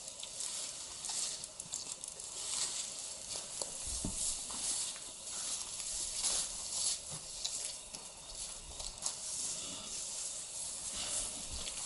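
Rustling of grass and ferns and footsteps through the undergrowth, a steady crackling hiss with a few dull low thumps.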